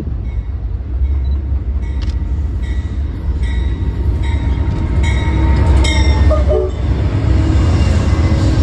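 An Amtrak GE P42 Genesis diesel locomotive and its bilevel Superliner passenger cars pass close by on the rails. There is a low engine drone and wheel rumble that grows louder as the locomotive draws level, about halfway through, then the cars roll past.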